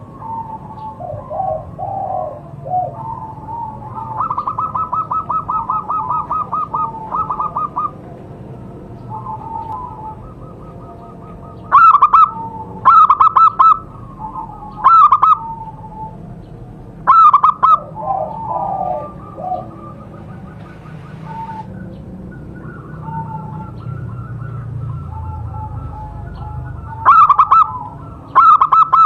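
Zebra doves (perkutut) cooing, several birds overlapping, with repeated phrases of quick staccato coos. There is a rapid pulsed run of notes a few seconds in, and very loud, distorted bursts of calls recur through the middle and again near the end.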